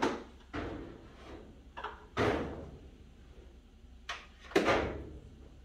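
About six irregular knocks and thumps of wood on wood as a 2x8 board is worked into position against the wall framing, the loudest pair about four and a half seconds in.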